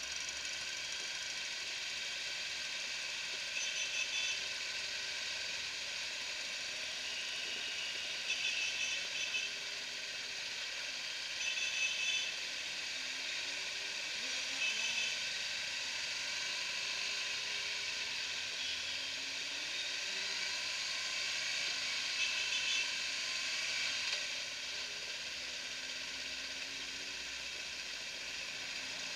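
Motorcycles riding in a group, heard from the rider's own bike: a steady rushing hiss of wind and road noise, with engines faintly rising and falling in pitch underneath. A handful of brief louder bursts stand out above the hiss.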